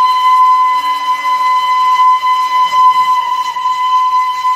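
A long whistle held on one steady high note, unbroken and unchanging in pitch.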